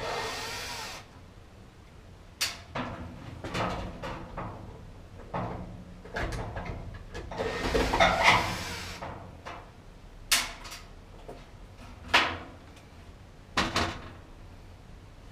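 Handling and moving dryer cabinet parts during disassembly: scattered knocks and clicks, with a brief scraping slide at the start and a longer, louder one about eight seconds in.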